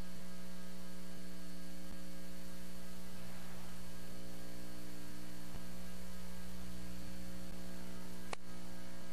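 Steady electrical mains hum: a buzzing stack of even, unchanging tones, with a single faint click about eight seconds in.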